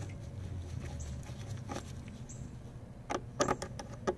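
A flathead screwdriver turns the worm screw of a metal hose clamp on an intake air hose to loosen it. It gives a few faint scrapes and short clicks, which come closer together near the end, over a low steady hum.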